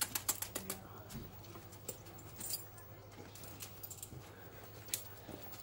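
A large dog's claws clicking on tarmac and its metal chain collar and lead jingling as it steps down out of a van's crate: a quick run of sharp clicks in the first second, then scattered single clicks.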